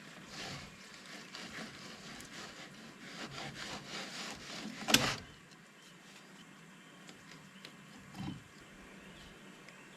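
A filleting knife cuts and scrapes through a hapuku's flesh along the bone for about five seconds, a run of scratchy rasping. It ends in a sharp knock, and a softer thump follows about three seconds later.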